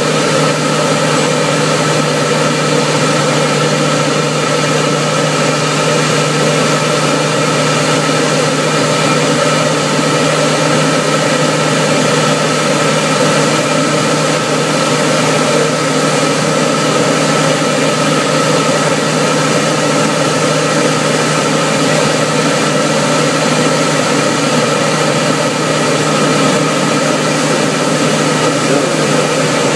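Single-engine light aircraft's engine and propeller droning steadily, heard from inside the cockpit: an even, unchanging hum with no change in pitch.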